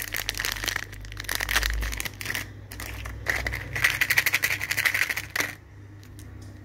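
Hard plastic candy toys and containers clicking and rattling as they are handled, in two quick spells with a short lull between them, stopping abruptly about five and a half seconds in.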